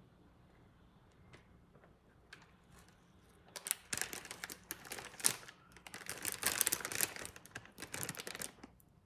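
Plastic instant-noodle packet crinkling as it is handled and turned over: a few faint clicks, then a dense run of crackles from about three and a half seconds in until near the end.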